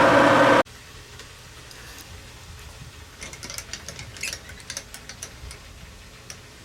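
Metal lathe running, cut off abruptly under a second in. Then comes a quiet stretch with scattered light clicks and ticks, thickest in the middle.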